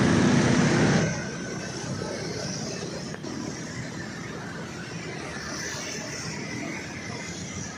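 Road vehicle noise: a loud rush, as of a vehicle passing close, for about the first second, then steady traffic noise. No horn melody sounds.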